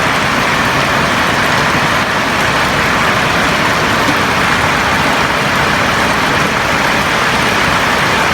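Steady heavy rain falling on a roof: a constant, even hiss.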